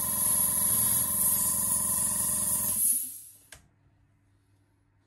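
Compressed air hissing steadily from a hand-held air-blower nozzle, blown over an opened iPhone X's earpiece and proximity-sensor area to dry out moisture. It cuts off about three seconds in, followed by a single light click.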